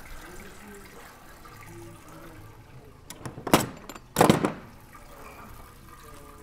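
Engine coolant gushing from a disconnected auxiliary-radiator hose and splashing into a drain pan as the cooling system is drained: a steady pouring, with two loud sharp sounds about three and a half and four seconds in.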